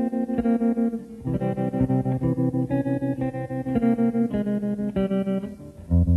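Instrumental song intro on electric guitar played through an effect, a slow line of sustained notes pulsing rapidly in loudness, over a bass. The line breaks off briefly about a second in and again near the end.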